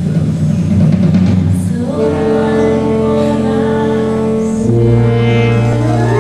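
Music: low sustained instrumental notes, then from about two seconds in a woman sings long held notes over the accompaniment.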